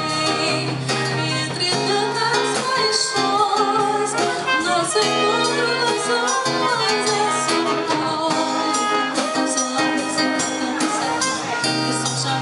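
Small live band playing an instrumental passage of a song, a brass horn carrying the melody over acoustic guitar, keyboard and drums.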